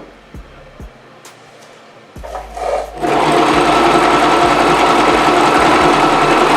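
Singer Promise 2 electric sewing machine stitching a hair weft onto a wig cap. After a short spurt about two seconds in, it runs loud and steady at speed from about three seconds in.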